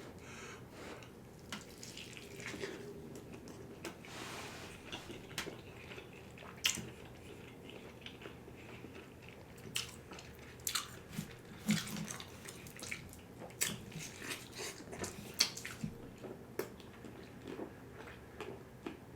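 Eating KFC fried chicken close to the microphone: irregular crisp bites and crackles of the breading, with wet chewing and mouth sounds in between.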